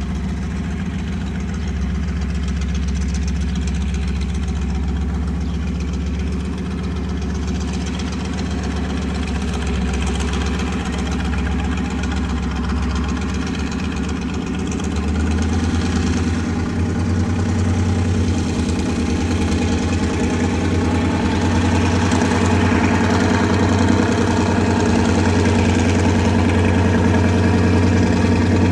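Light aircraft's piston engine and propeller droning steadily, slowly growing louder as the plane approaches. The low note steps up in pitch about halfway through.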